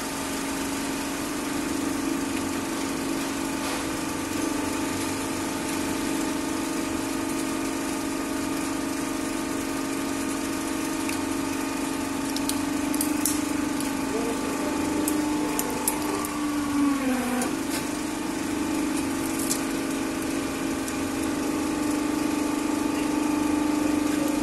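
A 50-ton hydraulic press's power unit hums steadily. About halfway through, plastic toy blocks give a series of sharp cracks and snaps as the ram crushes them, and the hum sags lower in pitch for a moment before it recovers.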